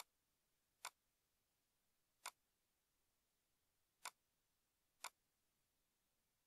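Computer mouse button clicking five times at uneven intervals, each a single short, sharp click, with near silence between.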